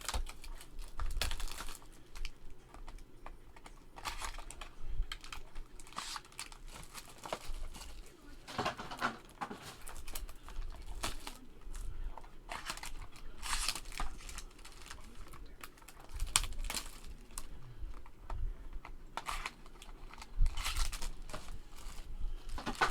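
Baseball trading cards and their packs being handled and opened by hand: irregular light clicks and taps of cards, with crinkling and tearing of pack wrappers.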